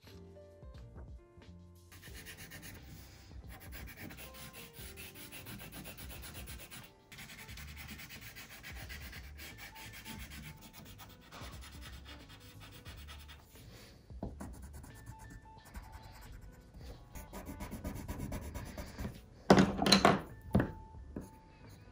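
Coloured pencil scratching across paper in quick back-and-forth strokes as an area is shaded in, over soft background music. A couple of louder knocks near the end.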